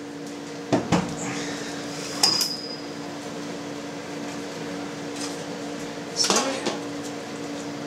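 Cheese press parts being handled and set down: knocks about a second in, a ringing metal clink at about two seconds, and more clatter about six seconds in as a plastic pressing plate and stainless-steel trays are moved. A steady low hum runs underneath.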